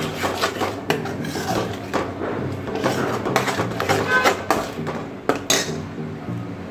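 Steel spoon stirring and scraping a thick egg bhurji masala around a nonstick pan, with repeated scrapes and light clinks against the pan, over background music.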